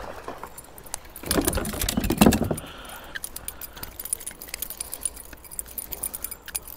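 A small redeye bass splashing at the surface as it is reeled in and swung out of the water on a spinnerbait. The splashing is loudest from about one to two and a half seconds in, then gives way to a light metallic jingling and clicking as the fish shakes on the lure.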